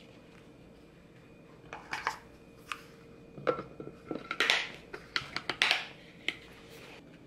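Kitchen items being handled: a string of light clicks, knocks and rustles beginning about two seconds in and stopping shortly before the end.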